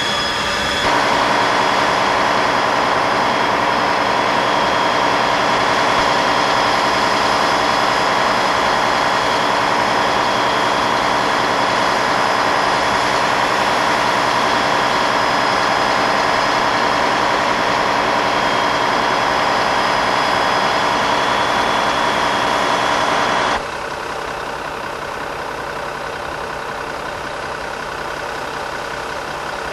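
Spray rig running steadily while a hand-held hose nozzle sprays a jet of liquid sealant in a loud, continuous hiss with a steady mechanical whine under it. About three-quarters of the way through the hiss stops abruptly, leaving a quieter steady engine hum.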